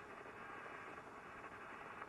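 Steady hiss from a 1963 radio-telephone tape recording, with no words coming through and the sound cut off above the treble like a telephone line.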